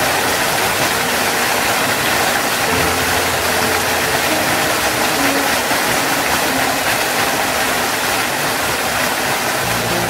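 Waterfall rushing steadily, a loud even roar of falling water.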